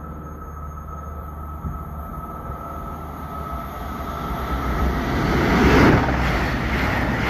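CrossCountry Voyager diesel train approaching and passing the platform at speed: a steady low hum and rush of wheels and air that grows louder, peaking about six seconds in as the train runs by.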